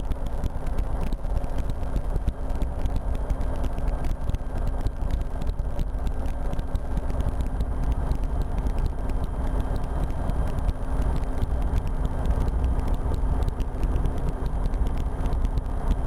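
RotorWay experimental helicopter in steady cruise flight, heard from the cockpit: a constant low rumble of engine and rotor with a steady hum and wind noise.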